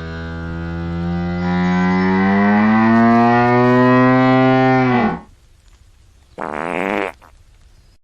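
Hippopotamus making one long, low call that slowly rises in pitch and cuts off about five seconds in. A short, harsher grunt follows about a second later.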